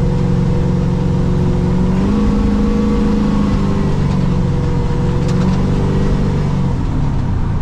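Chevrolet C10 pickup's engine running while driving, its pitch stepping up about two seconds in, holding, then easing back down.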